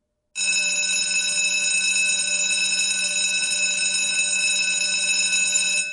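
Electric school bell ringing continuously, a steady bright ring that starts just after the beginning and stops near the end.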